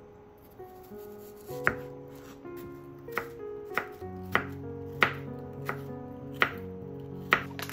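Chef's knife cutting peeled nagaimo (Japanese yam) into sticks on a wooden cutting board: about eight knife strikes through the yam onto the board, starting a second and a half in and falling roughly every two-thirds of a second, over background music.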